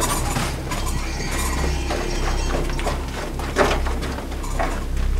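A steady low rumble with scattered clicks and creaky mechanical knocks, one sharper knock about three and a half seconds in.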